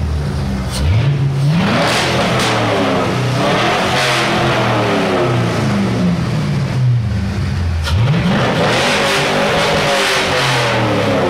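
C5 Corvette V8 engine running and blipped twice: the revs climb quickly about a second and a half in, sink slowly back, then climb again about eight seconds in and sink away once more.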